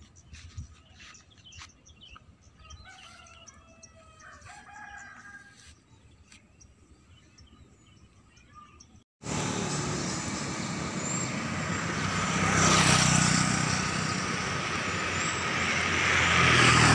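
A rooster crows faintly a few seconds in over quiet surroundings. About nine seconds in, the sound cuts suddenly to loud, steady motor-vehicle engine and wind noise from travelling along a road.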